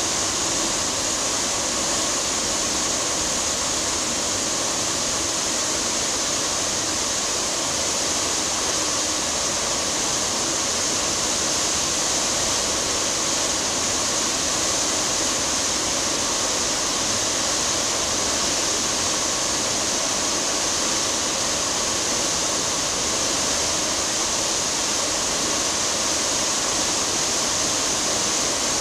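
Steady rushing hiss of a cruise ship's churning wake, an even wash of water noise that does not change.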